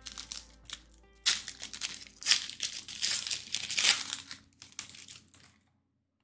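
Trading card pack wrapper being torn open and crinkled, in a run of crackly rustles over faint background music. It cuts off abruptly near the end.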